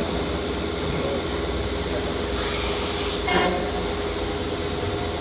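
CNC woodworking router centre running with a steady machine hum. About halfway through comes a short hiss of compressed air, followed by a brief loud clunk.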